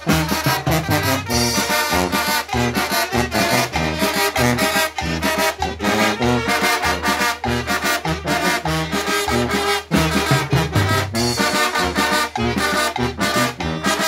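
Guerrero-style village brass band (banda de viento) playing live: trumpets, trombones and a large bell-front horn carry the tune over a steady beat of chrome snare drums, cowbells and cymbal.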